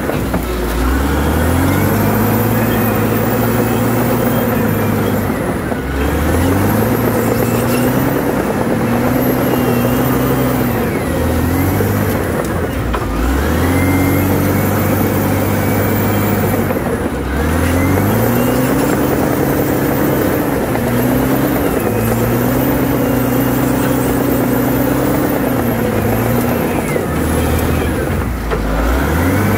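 Caterpillar D7R bulldozer's diesel engine running hard as the dozer pushes through brush. Its pitch sags and climbs back several times, and a faint high whine rises and falls with it.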